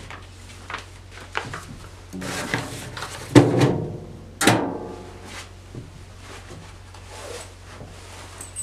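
Stainless steel locking mailbox being shut by hand: a sliding metal rub, then two clanks of sheet metal on metal about a second apart, each ringing briefly, with a few lighter clicks around them.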